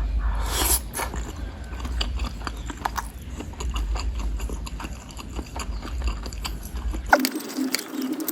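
Close-miked chewing and wet mouth sounds of someone eating bakso meatballs and noodles, with many small irregular clicks. A steady low hum lies underneath and drops out about seven seconds in.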